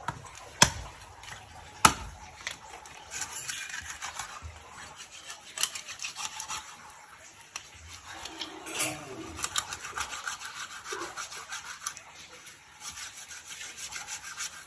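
Two sharp knocks, then a long run of quick rasping strokes of a knife working bamboo, splitting and shaving it into skewers for grilling fish.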